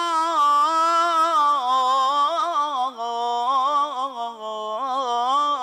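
A man's solo unaccompanied voice singing an Islamic ibtihal, holding one long melismatic vowel with fine wavering ornaments. The line steps down in pitch around the middle and sinks lower again near the end.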